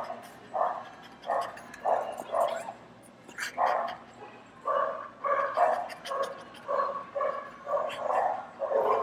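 Dogs barking over and over in short, uneven runs, a bark or two every second.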